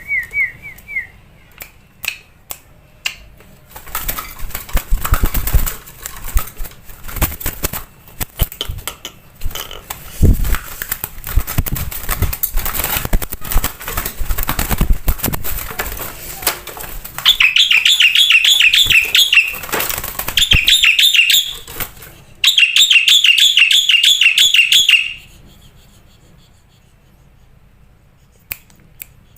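A bird, a jalak putih (black-winged myna), flapping and fluttering its wings with scattered clicks, then calling in three loud bouts of fast, repeated high whistling notes.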